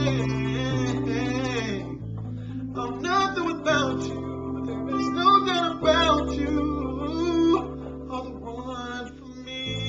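A man singing a slow original song over a steady chordal accompaniment, his voice gliding and bending between held notes.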